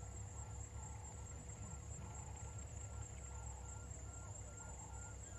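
Bush waterhole ambience: a steady high insect drone, with a short note repeated evenly about twice a second, over a low rumble.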